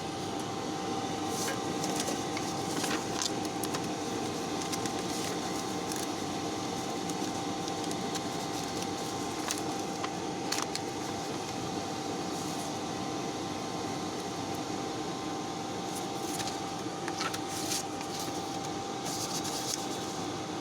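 K40 CO2 laser engraver making a strange sound while not working: a steady hum and hiss with a high, steady whine, broken by irregular crackles and ticks.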